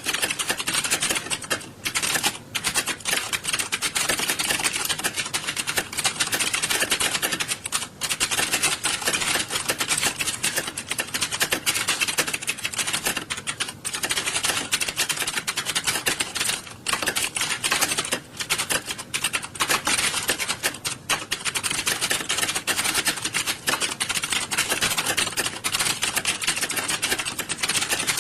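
Many computer keyboards being typed on at once, as in a typing-test hall: a dense, continuous clatter of keystrokes with a few brief lulls.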